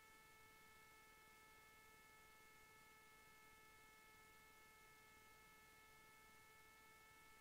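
Near silence: a faint, steady electrical hum made of several thin tones over a low hiss.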